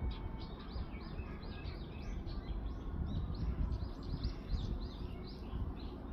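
Birds chirping: a quick run of many short, high chirps, thickest in the middle seconds, over a low rumbling background noise.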